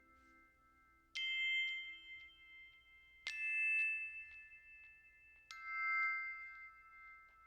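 Three high, bell-like chime notes about two seconds apart, each struck sharply and left to ring on, in background music.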